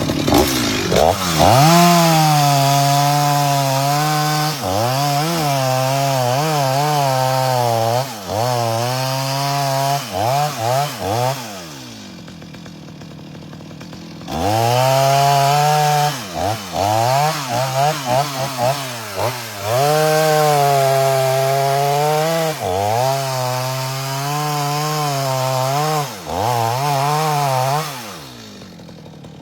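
Two-stroke chainsaw running at full throttle while cutting wood, with repeated short dips and blips in engine speed. It drops back to a low idle for a couple of seconds about halfway through, and again near the end.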